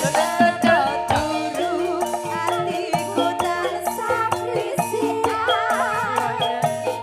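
Live campursari band music: a wavering melody over a steady beat of low notes and rattling percussion.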